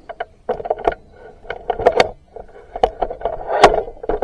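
Irregular knocks, clicks and clatters of hands working at the sawmill's detachable dust spout, the loudest knock about three and a half seconds in.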